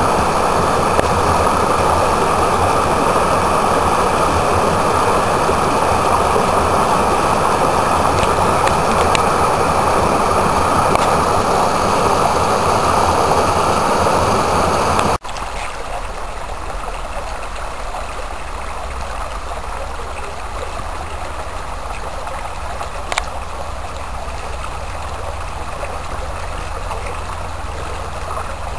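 Rain-swollen runoff rushing steadily down a rocky cascade. About halfway through it cuts abruptly to the quieter, thinner flow of a shallow stream running over stones.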